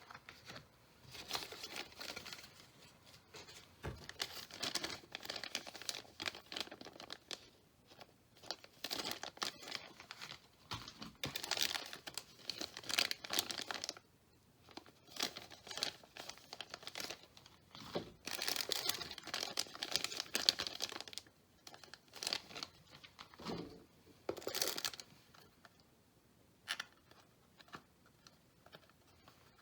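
Packaging being crinkled and torn open by hand, in crackly bursts of a few seconds with short pauses between, thinning to scattered clicks near the end.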